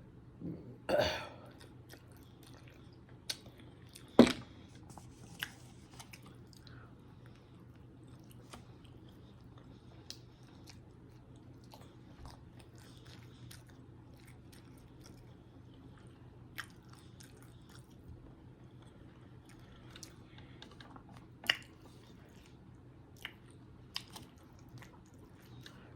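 Close-miked mouth sounds of someone eating a sausage, egg and cheese biscuit: quiet chewing with scattered small clicks and smacks. A louder short mouth sound comes about a second in, and sharp clicks stand out around four seconds and again late on.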